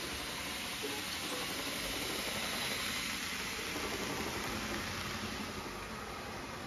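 Z-scale model train rolling past on its track, a steady hiss that grows a little louder as it comes close and fades after about five and a half seconds.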